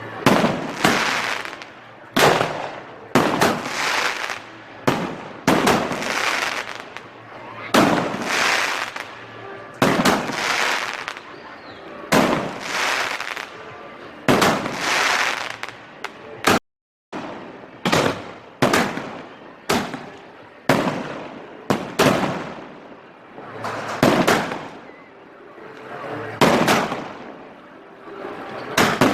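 Fireworks going off in quick succession. Each sharp bang is followed by a crackling, hissing tail, with a new burst every second or two. The sound cuts out for an instant about two-thirds of the way through.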